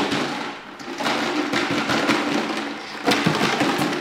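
Rattle jug, a plastic gallon jug with loose contents, shaken and knocked about on the floor: a dense clattering rattle that dips twice, briefly about half a second in and again just before the end, then comes back loud. It is the noise-stress test for a Malinois puppy's nerves.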